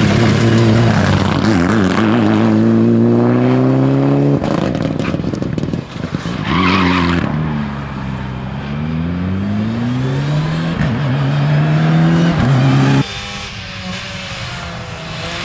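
Rally car engine revving hard, its pitch climbing as it accelerates until it cuts off sharply about four seconds in. The pitch then falls and climbs again as it powers on. About thirteen seconds in it drops abruptly to a quieter engine, also rising in pitch.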